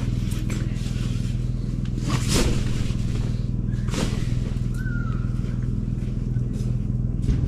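Steady low hum of a running engine or motor, with two sharp knocks about two and four seconds in.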